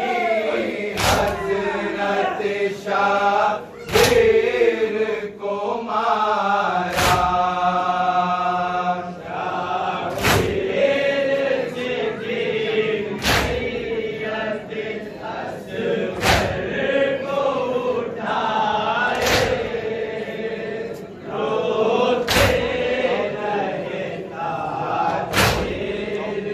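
Men chanting a Muharram nauha (lament) together, with a sharp collective beat of hands striking chests (matam) about every three seconds.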